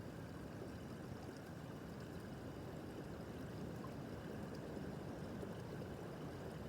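A small brook babbling over stones: a steady, even gurgle of running water.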